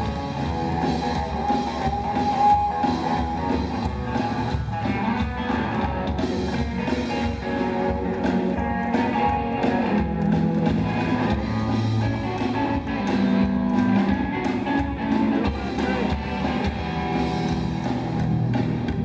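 Rockabilly band playing live with no vocals: electric guitar over upright bass and drum kit.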